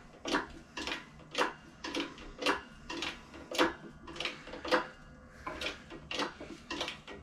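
Hydraulic bottle jack in a shop press being pumped by its handle, clicking and clanking about twice a second, as a cylinder liner is pressed into an OM617 diesel engine block.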